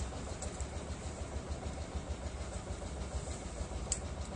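Wind buffeting an outdoor microphone: a low, uneven rumble with a light hiss, and a faint tick about four seconds in.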